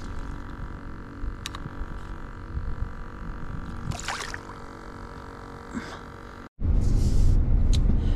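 A steady outdoor background with a level hum and a few light clicks. After a sudden cut about six and a half seconds in, it gives way to the louder, steady low rumble of road noise inside a moving car.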